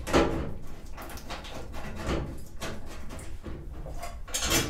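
Irregular metal clunks and scrapes of tools and steel parts being handled while a jig is bolted up in a car body. A few louder knocks stand out, the loudest near the end.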